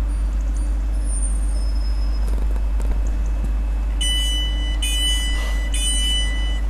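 Class 350 Desiro electric multiple unit drawing slowly along the platform with a steady low rumble. About four seconds in, the train's door warning beeps start: three long high electronic tones, one straight after another.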